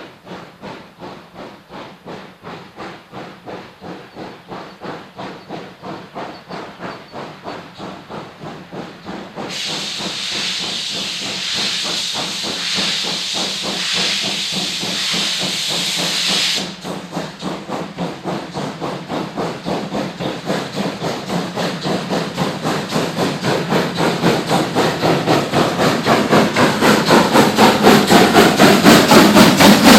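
Kriegslok steam locomotive working hard with a loaded coal train, its exhaust beating in a rapid, even rhythm and growing steadily louder as it approaches. A loud burst of steam hiss joins the beats about ten seconds in and stops abruptly some seven seconds later.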